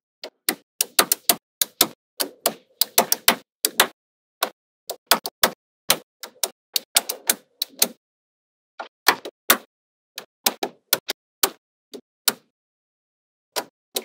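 Small neodymium magnetic balls clicking and snapping together as blocks and columns of them are pressed onto a magnetic-ball model. The clicks come in quick clusters with short gaps and a pause of about a second near the end.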